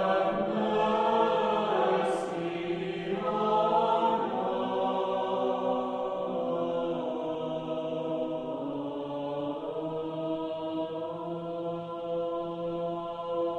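Choir chanting in long held notes over a steady low drone, as outro music.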